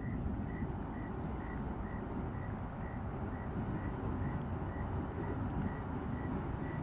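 Steady low outdoor rumble, with a faint, thin high peep repeating evenly about twice a second.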